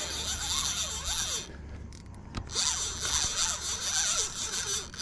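Spinning reel whirring as a big blue catfish is fought on the line. It runs in two stretches with a pause of about a second between them.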